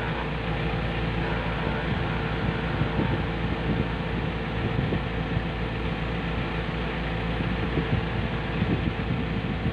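JCB backhoe loader's diesel engine running steadily at low revs as the machine works with pallet forks on its front loader.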